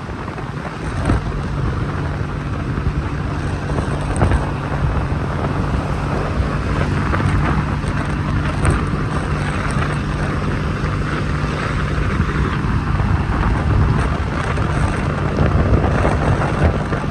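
Wind buffeting an unshielded phone microphone on a moving motor scooter, over a steady low hum of the scooter's engine and road noise.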